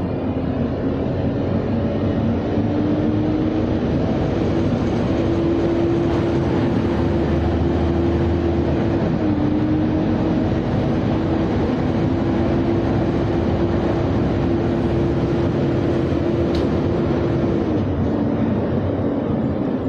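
Bus engine and road noise heard from inside a moving city bus, with a steady whine that climbs slightly in pitch as it picks up speed and fades near the end.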